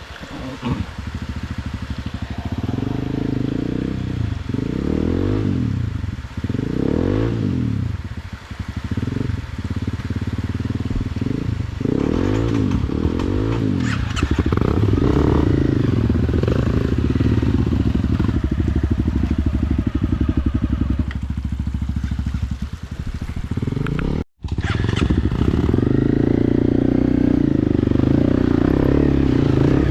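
Motorcycle engine being ridden, its revs rising and falling again and again, then running more steadily; the sound cuts out for a moment about 24 seconds in.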